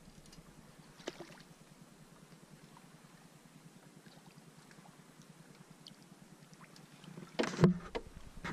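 Faint water and small handling noises in a canoe while a crappie is brought alongside and landed by hand. A single knock comes about a second in, and a brief loud voice-like sound near the end.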